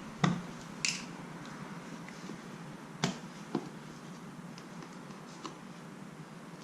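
A few short, sharp clicks and taps, four in all, over a faint steady background, from handling a plastic motor-oil jug at a motorcycle's oil filler during refilling.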